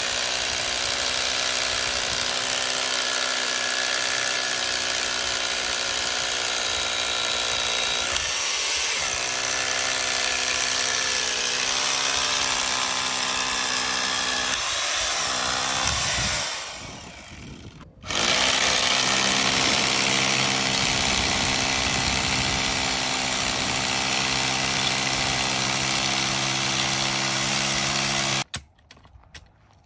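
Corded hammer drill boring into a concrete block, its motor running steadily. It winds down a little past halfway, starts again about two seconds later, and stops shortly before the end.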